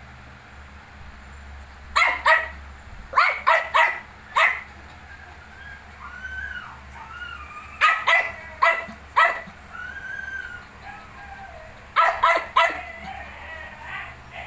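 Young puppies yipping in short, high-pitched bursts of two to four yips, with softer rising-and-falling whimpering whines in between.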